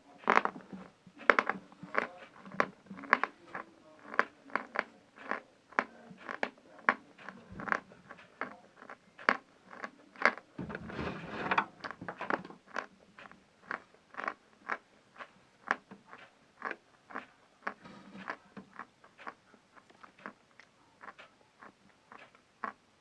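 Someone biting and chewing pieces of dry chalk, a crisp crunch about twice a second, with a denser grinding stretch about halfway through.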